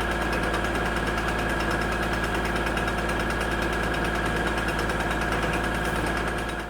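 Kubota L2501 tractor's three-cylinder diesel engine running steadily, driving a BX42S PTO wood chipper, with a steady high whine over the engine's drone.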